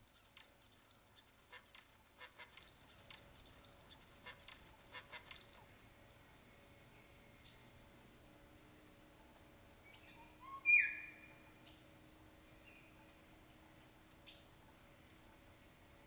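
Steady high-pitched insect chorus like crickets, with a few faint clicks in the first few seconds. A brief bird call with a falling pitch about two-thirds through is the loudest sound, and short chirps come about halfway and near the end.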